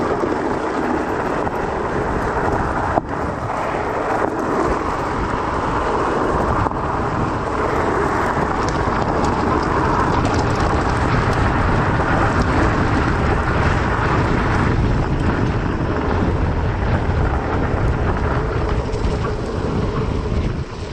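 Steady rumble of wind buffeting a bike-mounted action camera's microphone, mixed with fat-bike tyres rolling over gravel and dirt at speed. A sharp knock about three seconds in.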